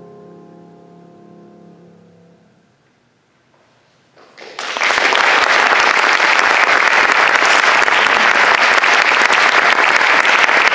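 A grand piano's final chord dies away over the first few seconds. After a brief hush, an audience breaks into applause a little over four seconds in, and it stays loud and steady.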